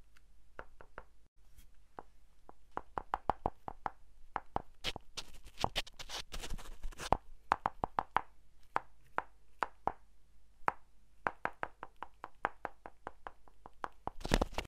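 Paper dragon puppet's jaws snapping shut close to a microphone: many sharp clacks, irregularly spaced and sometimes in quick runs of several.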